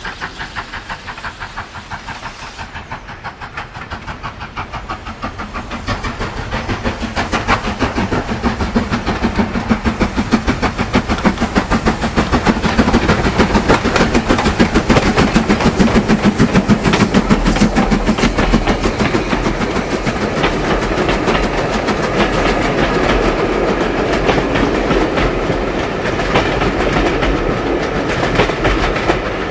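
Steam train running along the line, its wheels clattering quickly and evenly over the rail joints. It grows louder over the first dozen seconds or so, then eases a little.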